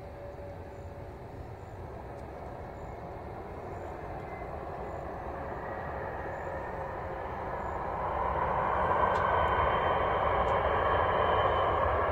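Jet airliner's engines on a distant runway: a rushing roar that builds steadily and grows clearly louder about eight seconds in, with a faint high whine over it.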